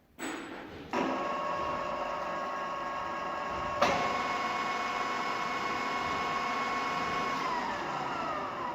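Radial drilling machine's spindle drive starting up and running with a steady gear whine of several tones, with a sharp click about four seconds in. Near the end the whine falls in pitch as the spindle runs down.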